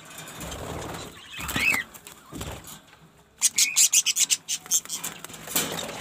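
Budgerigars fluttering in a wire cage as they are reached for: a fast, loud run of wingbeats starting about halfway through, with a short rising chirp before it.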